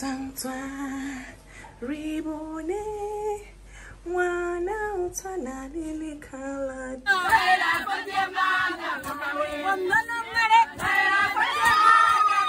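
A woman singing a slow, stepwise melody with held notes. About seven seconds in, this cuts abruptly to a group of women singing together, many voices at once and louder.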